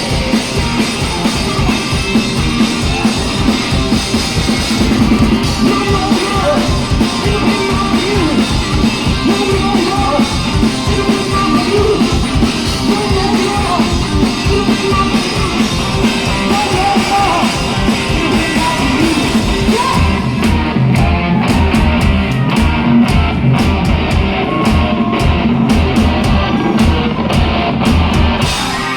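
A rock band playing live: electric guitar and drum kit with singing, loud and continuous. About twenty seconds in, the top end drops away and a heavy, even low beat drives on.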